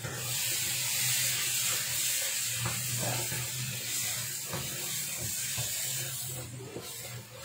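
Chicken sambal, a chili paste cooking in oil, sizzling in a wok as it is stirred with a wooden spatula: a steady hiss that eases off near the end.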